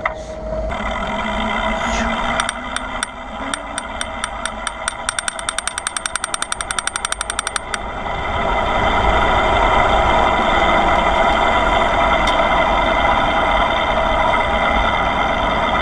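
Bicycle ride heard from the moving bike: a run of sharp ticks from the bike that come faster and faster, then stop about halfway through, followed by a loud, steady rush of wind on the microphone as the bike picks up speed.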